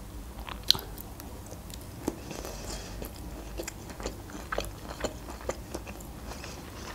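A person eating close to the microphone, biting and chewing boiled broccoli: soft wet mouth clicks and small crunches scattered throughout, with one sharper bite a little under a second in.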